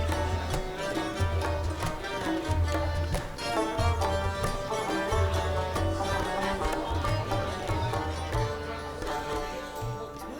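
Instrumental music: plucked strings playing a busy melody over a recurring low drum beat, fading a little near the end.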